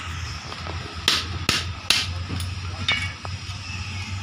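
Hammer blows on a tool held against a steel drum brake shoe: three sharp metallic strikes about half a second apart, then two lighter taps.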